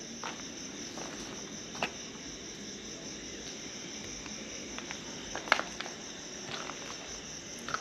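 Crickets chirping steadily in a high, even drone, with a few short sharp clicks: one about two seconds in and two close together about five and a half seconds in.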